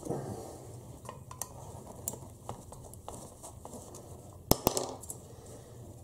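Diecast metal model car body and small hand tools being handled: scattered light clicks and taps, with two sharp metallic clinks close together about four and a half seconds in.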